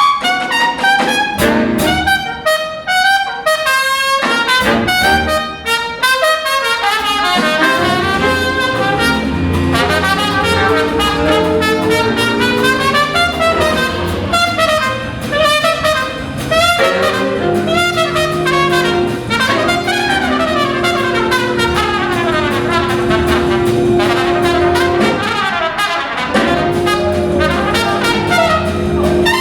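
Big-band jazz from a Broadway pit orchestra with the brass to the fore: short punched chords for the first several seconds, then fuller playing with long held chords.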